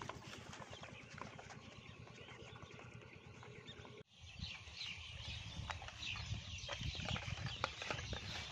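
Rural outdoor ambience with birds chirping and scattered soft knocks and rustles. The sound cuts out abruptly about four seconds in and comes back with the chirping busier.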